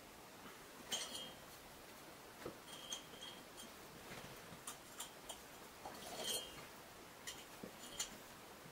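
Steel combination pliers clicking and clinking against the thin wall of a square steel profile tube as its cut flaps are gripped and bent: a scattering of light metallic taps, a few with a brief ring, and a short scrape about six seconds in.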